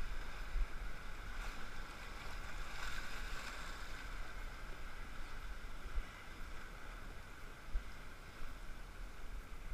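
Rushing whitewater of a class III river rapid, heard from a raft as a steady wash that swells about three seconds in, with a low rumble underneath and two brief thumps about six and eight seconds in.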